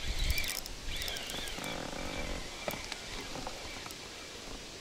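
Playing a hooked pike: a spinning reel being cranked, with water noise and a few sharp clicks, and a low rumble of wind on the microphone about the first half second.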